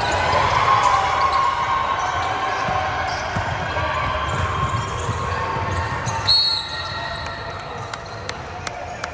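Basketball play: a ball bouncing repeatedly on the court under a steady murmur of players' and spectators' voices. A brief high-pitched squeal comes about six seconds in, after which the bouncing dies down.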